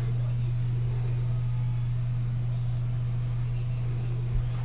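A steady low hum at one unchanging pitch, with a single low thump near the end.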